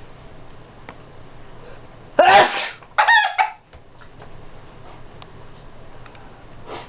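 A person sneezes loudly, and right after it a chicken answers with a short, pulsed squawking call, its angry reaction to the sneeze. A faint short breathy burst follows near the end.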